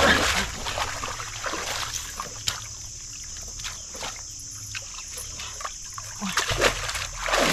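Muddy pond water splashing and sloshing around a person sitting in the shallows, with a loud splash at the start and more splashing near the end; in between, quieter with a few short sharp splashes or drips.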